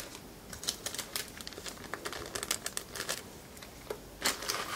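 Small plastic zip-lock parts bags crinkling and rustling as they are handled, with irregular light clicks and taps; a denser, louder patch of crinkling near the end.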